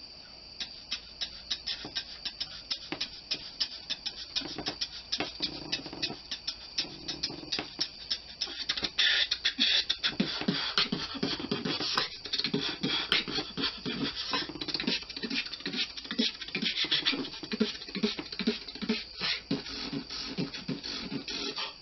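Beatboxing: a person making fast, rhythmic drum-like clicks and snares with the mouth, joined about five seconds in by low pulsing bass notes, getting louder about nine seconds in.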